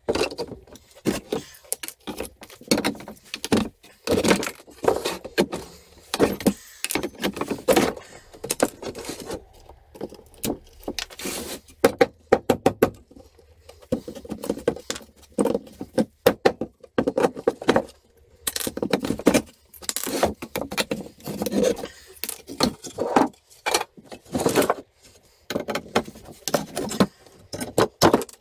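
Hand tools dismantling a wooden pallet: a steel claw hammer and prying tool knocking and levering the nailed deck boards off the blocks, giving many irregular knocks and metallic clinks.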